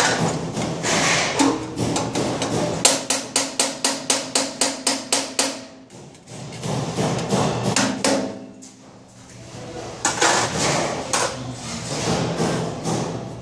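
Hand tool hammering during overhead work: a fast, even run of about four blows a second for about three seconds, starting about three seconds in, with looser knocks and tool clatter before and after.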